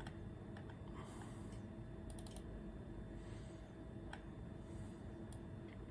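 Scattered faint clicks of a computer keyboard and mouse being worked, over a steady low hum with a few faint tones.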